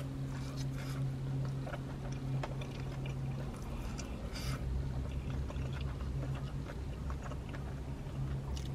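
A person chewing hot fried food quietly, with small scattered mouth and fork clicks, over a steady low hum inside a car.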